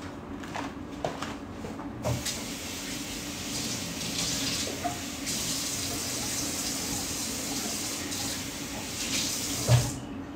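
Kitchen mixer tap running into a sink, turned on about two seconds in and shut off near the end. A thump comes just before the water stops.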